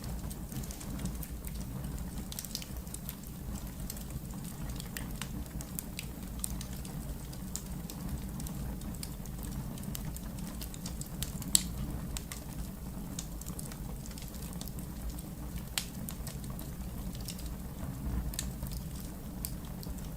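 Wood fire in a fireplace crackling steadily over a low rumble of the flames, with scattered snaps and one louder pop about halfway through.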